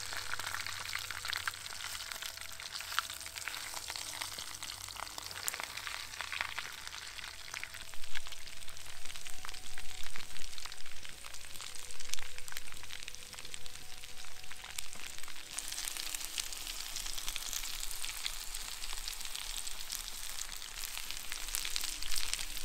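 Raccoon thigh meat deep-frying in hot oil and rendered fat: a steady crackling sizzle full of fine pops, louder and sharper for a few seconds in the middle.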